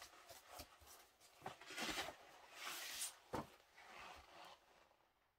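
Faint swishes of a vinyl LP being slid out of its inner sleeve, with a few light taps as the record and sleeve are handled.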